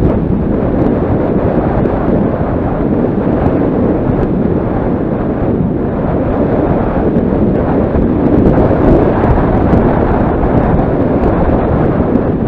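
Loud, steady wind rumble buffeting the microphone of a camera moving fast down a road.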